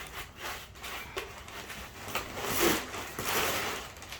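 Packaging rustling and scraping as the front wheel is pulled out of a cardboard bike box, in uneven bursts that are loudest in the second half.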